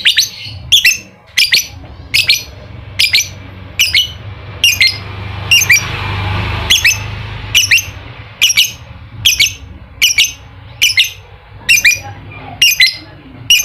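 Lovebird giving a steady series of sharp, shrill calls, each dropping in pitch, about one every 0.8 seconds, over a faint low hum.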